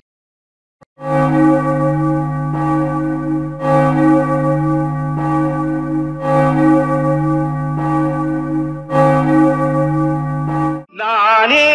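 Church bells tolling, with a fresh stroke every second or so over a long ringing hum, stopping abruptly near the end.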